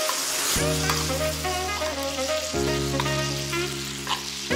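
Butter sizzling and bubbling in a cast iron pan as a tomahawk steak is basted in it, under background music with sustained chords that change about every two seconds.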